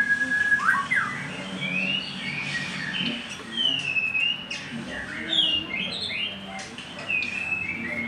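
White-rumped shama (murai batu) singing nonstop from its cage: a run of varied, clear whistled phrases, notes gliding up and down one after another.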